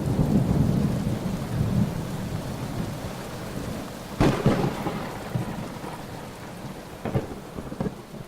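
Thunderstorm: steady rain hissing under rolling thunder. The rumble fades over the first few seconds, a sharp thunderclap cracks about four seconds in and rumbles on, and a smaller crack comes near the end.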